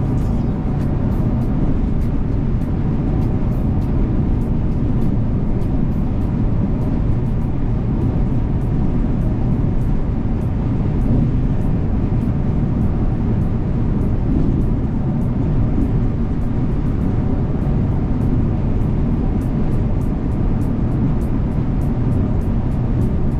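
Volvo B450R coach on the road: steady drone of its diesel engine and road noise with no change in pace, with a faint irregular ticking over the top.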